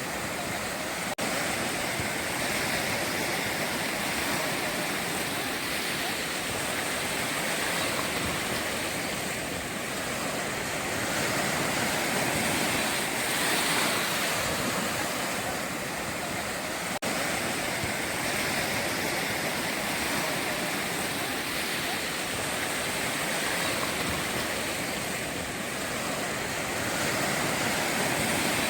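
Sea waves breaking and washing on the shore, a steady rush of surf that swells and eases slowly, with two momentary dropouts in the sound.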